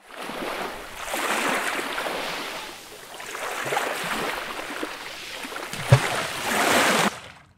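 Rushing, splashing water sound effect rising and falling in three swells, with a short low thud about six seconds in, cutting off suddenly near the end.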